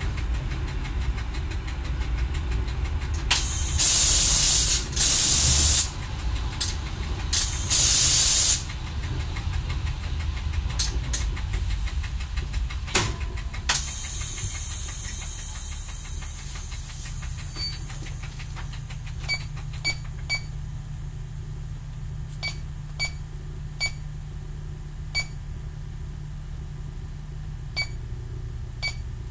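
Y1 railcar's diesel engine running as the car rolls slowly, with three loud bursts of air hiss a few seconds in as it brakes to a stop. A knock and a fading hiss follow, then the engine idles at a stand with scattered sharp ticks.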